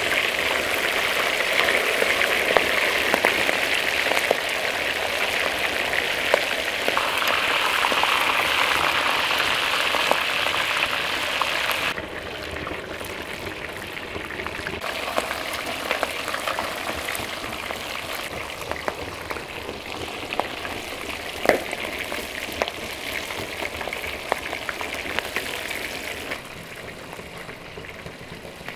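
Pieces of fish frying in hot oil in a wide pan: a steady crackling sizzle with scattered small pops and clicks, which drops in loudness about halfway through.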